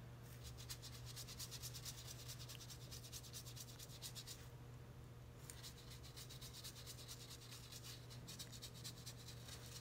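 Paintbrush scrubbing back and forth on watercolour paper in quick, repeated strokes, softening a background wash into a fade. The strokes pause for about a second midway.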